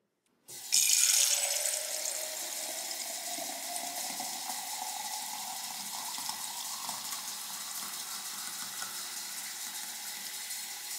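Kitchen faucet water pouring into a glass tumbler in a stainless-steel sink. It starts about half a second in with a louder splash, then settles into a steady stream whose note slowly rises as the glass fills. The water comes through an under-sink filter cartridge that is overdue for replacement.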